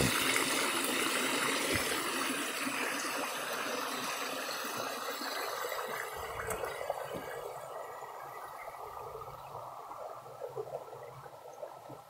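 Water gushing from a hose outlet and running over the rocks of a mountain stream, a steady rushing that grows steadily fainter. A few light knocks come about halfway through.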